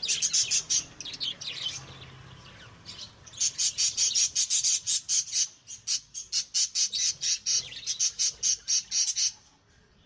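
Budgerigars squabbling in a cage, giving rapid, repeated shrill chirps and squawks, about five a second. There is a burst at the start, a short lull, then a longer unbroken run from about three seconds in until near the end.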